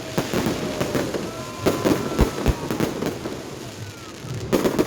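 Fireworks display: a rapid run of shell bursts and crackling bangs, loudest around two seconds in and again near the end, with faint whistling tones sliding between them.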